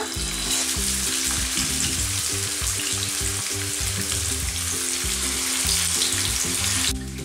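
Masala-coated whole fish frying in hot oil in a pan, a loud, steady sizzle that begins as the fish goes in and cuts off suddenly near the end.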